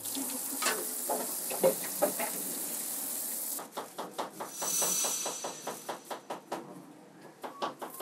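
Galley kitchen prep sounds: a steady hiss for the first few seconds, then a knife chopping quickly on a cutting board, about five strokes a second.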